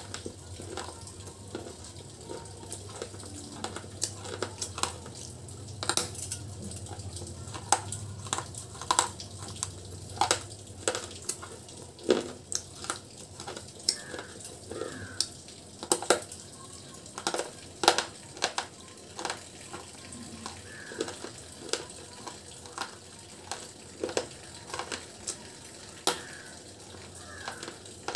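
Close-miked chewing of pieces of broken baked-clay pot: irregular sharp crunches and crackles, a few of them loud.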